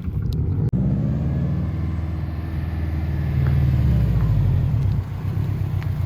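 Subaru WRX STI's turbocharged EJ flat-four engine pulling under acceleration through its aftermarket exhaust, the pitch rising for about three seconds and then falling away as the throttle comes off.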